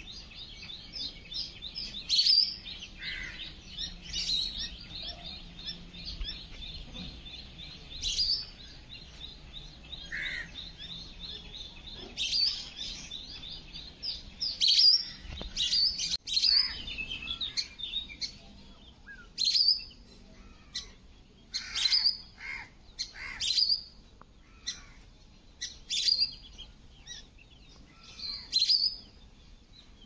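Birds chirping and calling: sharp high chirps every second or so, with a fast run of repeated notes in the first few seconds and again midway.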